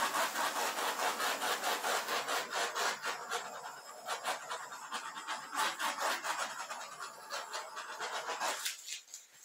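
Continuous rapid scratchy rubbing strokes that die away near the end.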